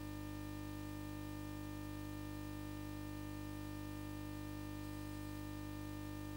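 Steady electrical hum, unchanging, with no other sound over it.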